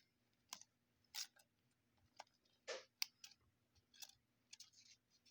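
Faint, irregular clicks and rustles of baseball trading cards being handled and slid into plastic card sleeves, with one slightly longer rustle about midway.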